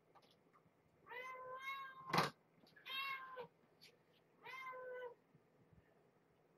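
An adult cat meows three times, each call under a second long, about a second apart. A single sharp click falls just after the first meow and is the loudest sound.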